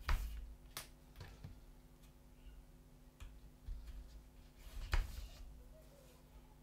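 Hand-stitching a small leather pocket: needle and thread drawn through the stitching holes, with soft rustling and handling of the leather and a few sharp clicks and taps, the loudest at the start and about five seconds in.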